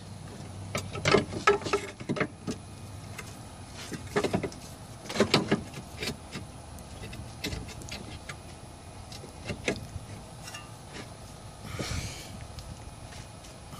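Irregular knocks, clunks and scrapes of a new metal lower control arm being worked by hand into its mounts under a car, with the loudest knocks about one second and about five seconds in.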